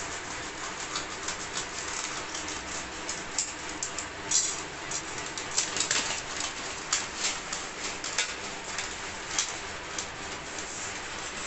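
Brown paper mailer bag crinkling and rustling as it is cut open with scissors and handled, in irregular sharp crackles over a steady hiss.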